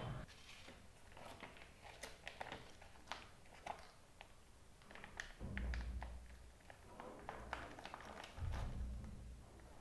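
Thin plastic meat packaging crinkling and crackling as it is handled and peeled open, in many small irregular crackles. Low dull thumps come about halfway through and again near the end.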